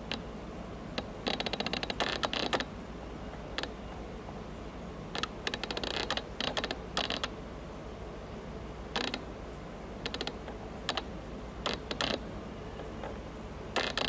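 Irregular bursts of rapid clicking and creaking, in short clusters a second or two apart, over a steady low hum.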